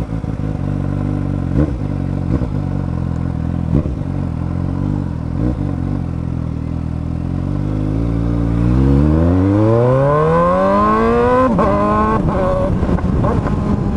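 Motorcycle engine running loud through an Akrapovič exhaust with its end tip removed. It runs steadily at low revs, then about eight seconds in the pitch climbs for three or four seconds as it accelerates, drops suddenly, and carries on at a lower pitch.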